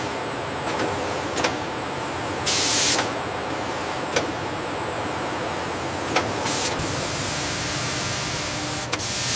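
Steady industrial machine noise with a loud burst of hissing about two and a half seconds in, a few sharp clicks, and a steadier hiss through the second half.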